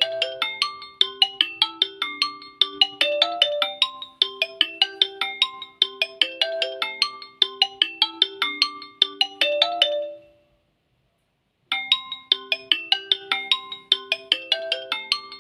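Xiaomi Redmi 10A's stock ringtone playing: a quick, marimba-like melody of short struck notes repeating as a phrase. It stops about ten seconds in and starts again after a second and a half of silence.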